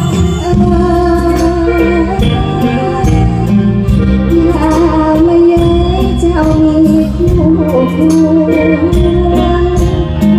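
Live band playing an Isan-style Thai song through a stage PA, with a woman singing the wavering melody into a microphone over a steady drum beat.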